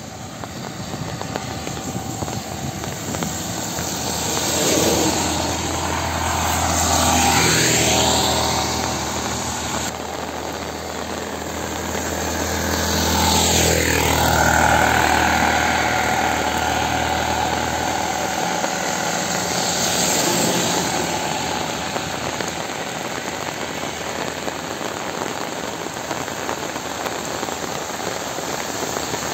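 Motor vehicles passing three times in turn, each engine swelling and fading, over the steady noise of heavy rain.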